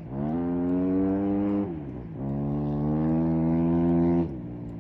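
A motor engine speeding up through the gears. Its pitch climbs and holds, drops at a gear change about two seconds in, climbs and holds again, then falls away near the end.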